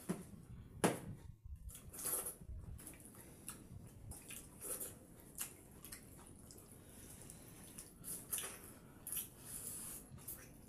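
Wet eating sounds of pakhala bhata, rice soaked in water, being mashed by hand in steel bowls and sipped from the bowl. Irregular squelches, slurps and mouth smacks.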